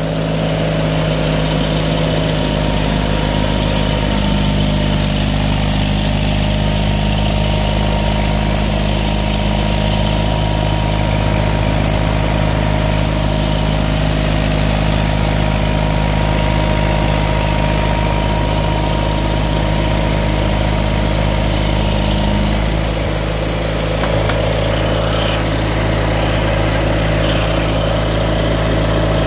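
John Deere 318 garden tractor's air-cooled twin-cylinder engine running steadily, driving a front-mounted Deere 49 snowblower as it throws snow.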